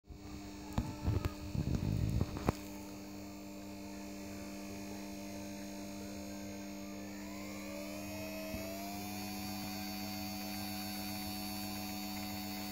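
A few handling knocks and clicks in the first couple of seconds over a steady electrical hum. About seven seconds in, a small DC gear motor run from a speed controller starts to whine, rising in pitch as it speeds up, then holds a steady whine.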